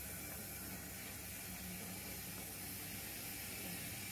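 O gauge model goods wagons rolling slowly along the track, a steady low rumble of their metal wheels on the rails.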